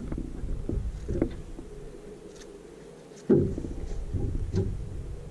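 Knocks and low thumping on the boat's deck as people move around it, in two bursts: one starting sharply at the outset and another about three seconds in.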